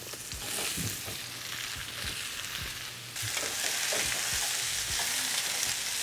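Zucchini, yellow squash and carrots sizzling in oil in a pan on high heat, stirred with a wooden spoon that knocks and scrapes against the pan. The sizzle gets louder about three seconds in.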